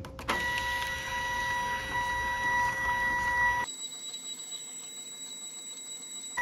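Zebra ZT410 thermal transfer printer feeding labels through during a short media calibration: its feed motor gives a steady whine, which about three and a half seconds in jumps higher in pitch and gets quieter.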